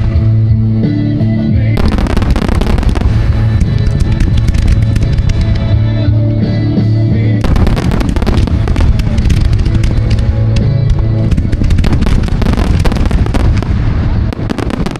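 A dense, continuous fireworks barrage of many rapid bangs and crackles, over music with long held low notes.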